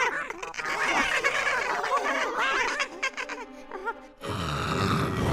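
Cartoon mice laughing and snickering in high, gliding voices over background music. About four seconds in, the laughter stops and a low rumbling sound takes over.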